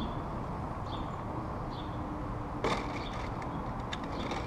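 A sharp metallic click about two and a half seconds in, followed by a few lighter clicks, as the new motorcycle footpeg and its small hardware are handled. Steady outdoor background noise runs under it, with a bird chirping briefly now and then.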